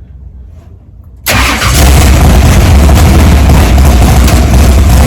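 Car engine starting about a second in and then running loud and steady.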